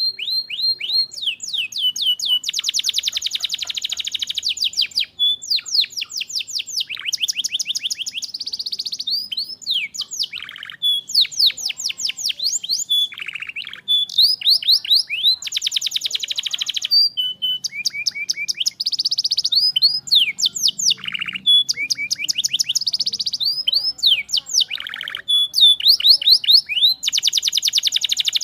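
Domestic canary singing a continuous song of fast trills, each phrase a rapid run of repeated sweeping notes, phrases changing every second or two. It is the kind of song recording played to coax a canary that has stopped singing into song.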